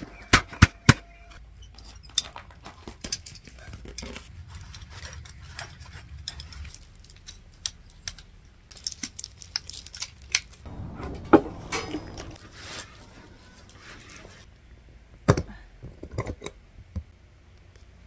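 Irregular clicks and clinks of small hard objects being handled, with a few louder knocks just after the start, about two-thirds through and near the end.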